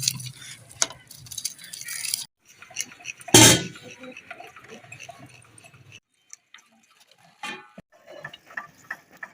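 Kitchen utensils and dishes clinking and knocking, with one loud clatter about three seconds in.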